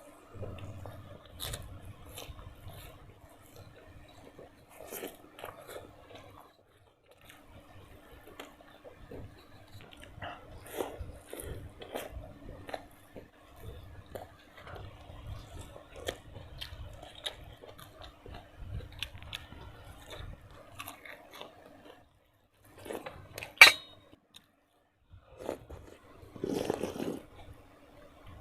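Close-miked chewing and crunching of food, with scattered light clicks of utensils and dishes over a faint steady hum. One sharp, loud click comes about three-quarters of the way through.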